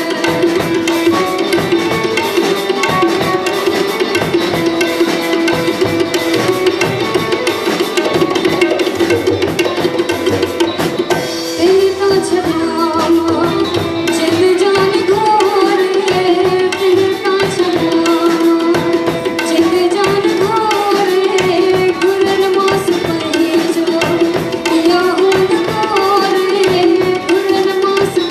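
Live Sindhi song: tabla playing a steady rhythm under a sustained melodic line, with a woman singing into a microphone; her voice glides and ornaments more from about twelve seconds in.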